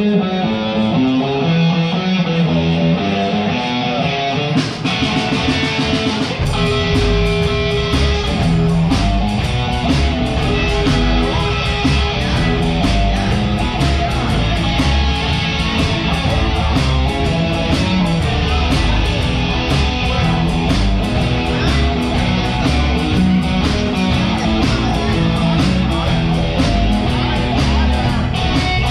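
Live blues band playing an instrumental intro: electric guitar alone at first, then drums with cymbals come in about five seconds in and bass joins a moment later, settling into a steady beat.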